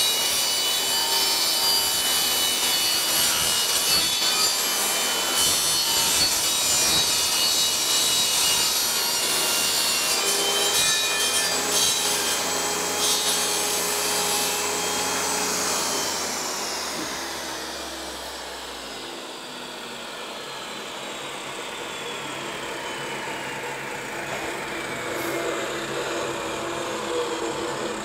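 A Ridgid portable table saw cutting a curve in an engineered hardwood flooring plank. About sixteen seconds in it is switched off, and the blade coasts down slowly with a falling whine, because the saw has no blade brake.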